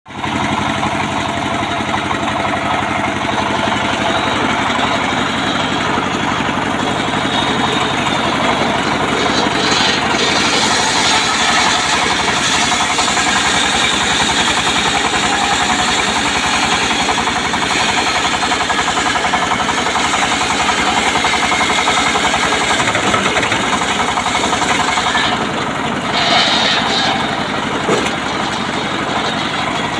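A mobile circular sawmill running under power: a stationary single-cylinder diesel engine drives a large circular saw blade that rips lengthwise through an acacia log. The high sawing noise grows fuller about ten seconds in, dips briefly near the end, and is followed by a couple of sharp knocks.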